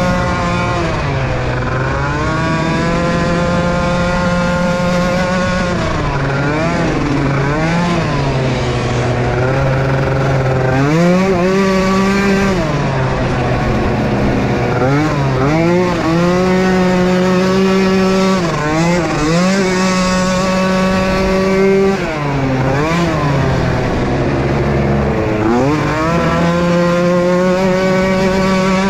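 Small youth ATV engines racing, their pitch repeatedly climbing as they accelerate and dropping back as they ease off, at times with more than one engine heard at once.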